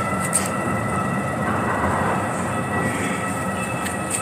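Steady city street traffic noise with several steady high-pitched whining tones running through it, and a faint click about half a second in.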